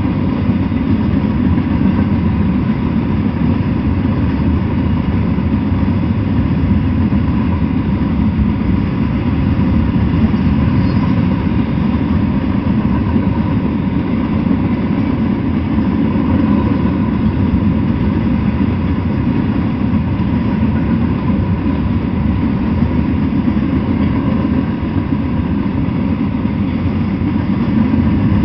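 Freight train of flatcars loaded with steel coils rolling slowly past, a steady rumble of wheels on rail.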